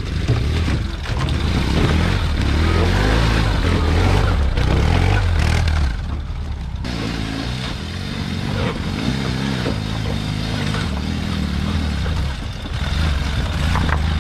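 Ural sidecar motorcycles' air-cooled boxer-twin engines running under load as the bikes climb a rocky trail toward the microphone, the revs dropping briefly about halfway through and then rising again.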